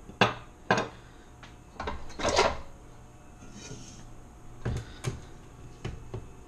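Sharp clunks and knocks of metal kitchenware: a stand mixer's metal dough hook is set down on a spoon rest and stainless steel mixing bowls are handled. There is a louder rattling clatter about two seconds in and a few more knocks near the end.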